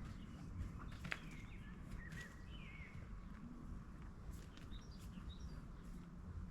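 Faint small birds chirping: a couple of warbled phrases early on and a few short chirps later, over a steady low background rumble. There is a single sharp click about a second in.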